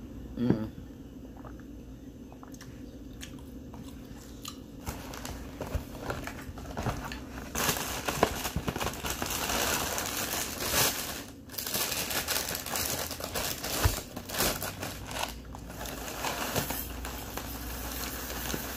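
A sharp knock near the start, then the plastic inner bag of a cereal box crinkling and rustling as it is opened and handled, growing louder from about five seconds in. Near the end the Fruity Pebbles cereal starts to pour into the bowl.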